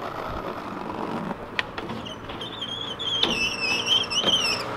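Skateboard wheels rolling on paving stones, then the tail pop about a second and a half in, followed by the board sliding along a steel handrail with a high, wavering squeal that lasts nearly three seconds and dips in pitch near the end.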